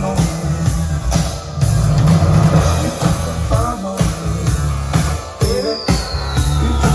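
Music with a steady drum beat and heavy bass played loud through a Sony LBT-XB44 mini hi-fi system and its speakers, with a long falling synth sweep starting about five and a half seconds in.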